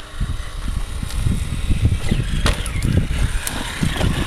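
Traxxas Summit RC truck climbing a concrete curb: its electric motor whirring and sharp knocks as the wheels strike the curb, over loud, uneven low rumbling.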